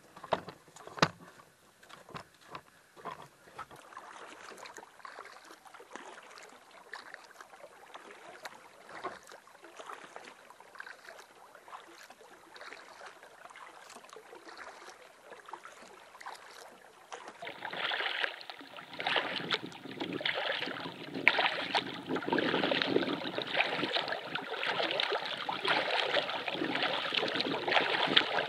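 Canoe on the water: a few sharp knocks in the first three seconds, then water lapping and splashing. About 17 seconds in, a louder, steady rush of flowing water takes over.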